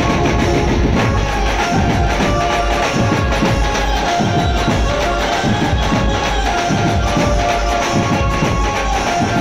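Drum troupe of large barrel dhol drums beaten together in a fast, steady rhythm, with sharp, tambourine-like higher percussion and a few sustained ringing tones over the drumming.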